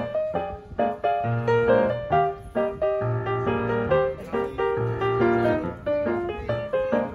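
Piano music, a tune of quick struck notes and chords over repeated low bass notes.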